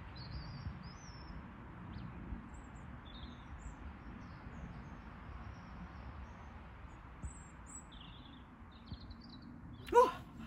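Garden birds chirping faintly here and there over a steady low outdoor background hum. About ten seconds in, a woman's voice is heard briefly and louder.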